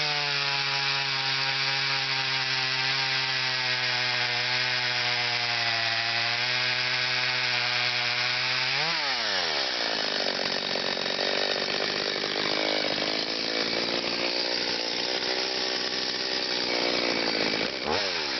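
Stihl MS 210 C two-stroke chainsaw running at high revs at a steady pitch. About halfway through the revs flick up and then drop, and the engine runs lower and unevenly. Near the end it revs up briefly and falls back.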